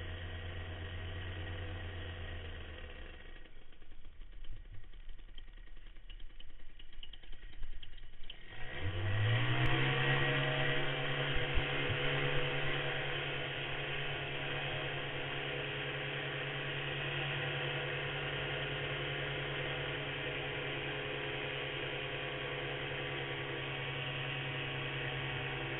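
Paramotor engine idling, then running unevenly for a few seconds. About nine seconds in, the throttle opens and the pitch sweeps quickly up; the engine then holds a steady, louder, higher-pitched run.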